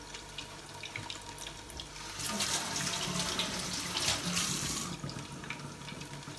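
Kitchen tap running into a stainless-steel sink for about three seconds, starting about two seconds in, as hands are rinsed. Under it comes the faint crackle of oil spitting around cutlets frying under a lid.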